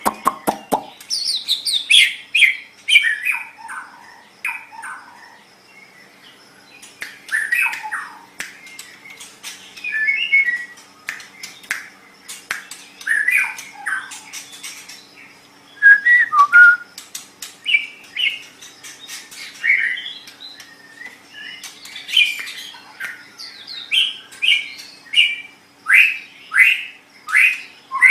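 White-rumped shama (murai batu) singing: short phrases of varied, loud whistled notes and sweeps, some falling in pitch, mixed with sharp clicking notes, broken by brief pauses.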